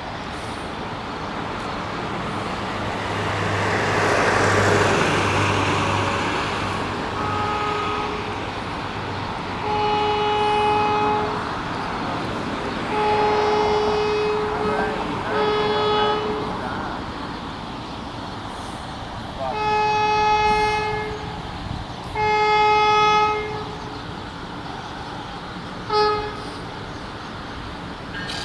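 Horn of an approaching Stadler GTW diesel light-rail train sounding a series of steady blasts. The last group goes long, long, short, long, the standard grade-crossing signal. In the first few seconds a swell of passing road traffic rises and fades.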